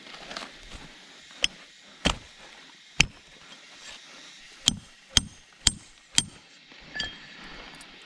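A run of about eight sharp chopping strikes at uneven intervals, spaced half a second to a second apart and bunched closer in the middle. Several strikes are followed by a brief high ring.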